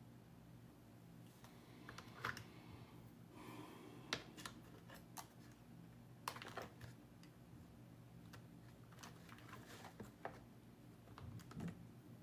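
Near silence broken by faint, scattered clicks and taps, about a dozen irregular ones.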